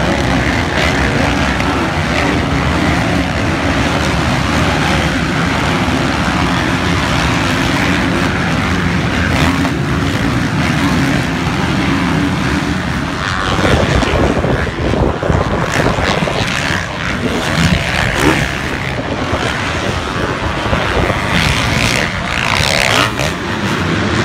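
Several motocross bikes racing on a dirt track, their engines running hard at high revs. The engine sound is steady at first, then changes abruptly about halfway through, with revs rising and falling near the end.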